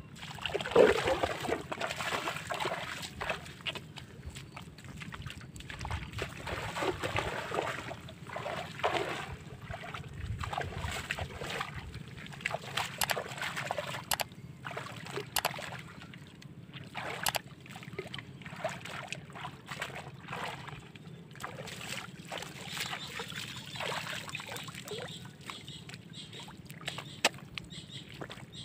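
Irregular sloshing and splashing of shallow pond water as a person wades through it and gropes with their hands in the muddy bottom, with a few sharp clicks.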